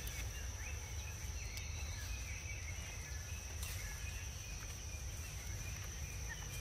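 Outdoor ambience dominated by a steady high-pitched insect drone, over a constant low rumble, with a few faint short bird chirps.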